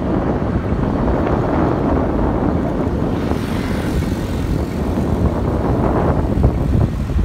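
Wind buffeting the microphone while riding a motorbike along a paved road, mixed with the bike's running and road noise, steady and unbroken.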